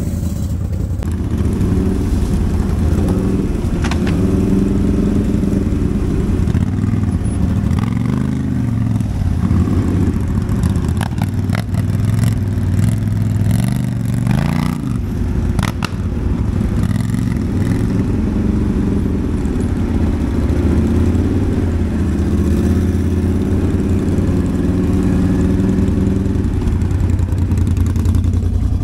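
ATV engine running and revving up and down repeatedly as the quad works over rough ground, with scattered knocks and clatter.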